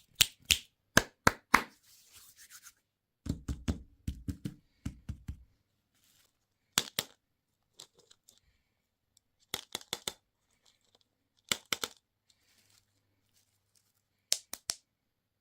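Plastic candy and toy packaging being handled and torn open, in short clusters of sharp crackles and clicks every couple of seconds, with a brief rustle and a low rumbling handling noise a few seconds in.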